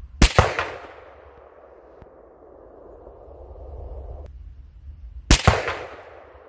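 Two shots from an AR-15 rifle firing .223 Remington, about five seconds apart. Each is a sharp crack with a second report a split second later, then a long rolling echo that fades out.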